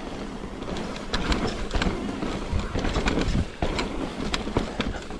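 Mountain bike riding over slickrock and rocky dirt trail: a rough rolling rumble of tyres on rock with many quick clicks and rattles from the bike, louder from about a second in.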